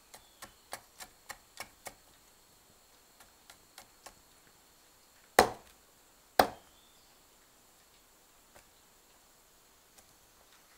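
Machete striking bamboo on a wooden log: a quick run of light taps, about four a second, in the first two seconds, then two loud, sharp chops a second apart about halfway through.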